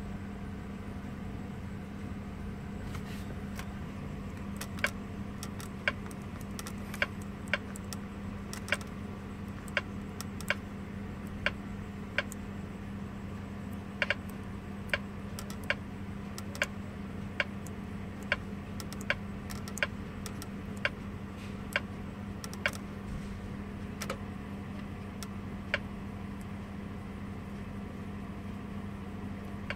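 Short sharp clicks, about one a second, as a finger taps the touchscreen of a Kenwood DDX42BT car head unit, over a steady low hum.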